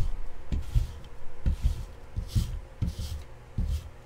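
A stack of trading cards being handled on a tabletop: soft knocks, each followed by a papery swish, about five times in a steady rhythm roughly once a second.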